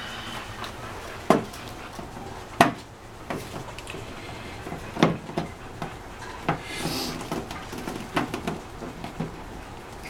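A plastic power strip being fitted over mounting screw heads on a plywood wall: several sharp clicks and knocks, a second or more apart, with lighter taps near the end.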